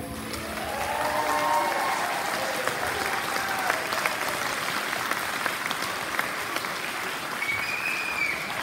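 Audience applauding as a song ends, swelling over the first second or so, with a few voices calling out over the clapping.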